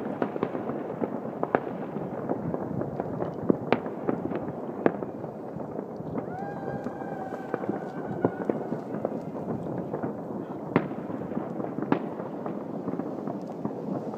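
Many distant New Year's fireworks and firecrackers going off at once: a continuous crackle with frequent sharper bangs standing out. A faint steady whistle is held for about two seconds midway.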